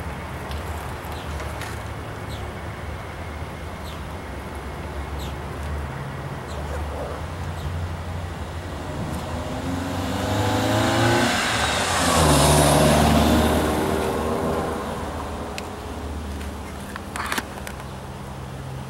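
A motor vehicle drives past close by, its engine and tyre noise swelling to a peak about two-thirds of the way through and then fading, over a steady low hum. A few sharp clicks near the end.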